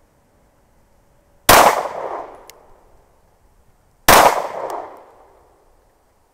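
Two shots from a Glock 19 Gen 5 9mm pistol, about two and a half seconds apart: slow aimed fire. Each is a sharp crack followed by an echo that dies away over about a second.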